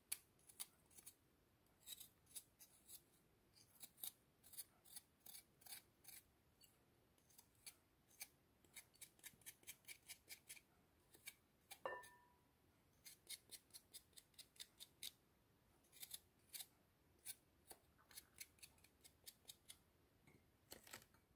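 Knife blade scraping the thin skin off fresh young ginger in quick, faint strokes that come in short runs; the new-season skin comes away easily. About twelve seconds in, one short ringing clink.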